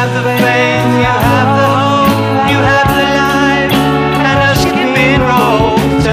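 Recorded folk-rock song: a man singing over a band with a steady beat.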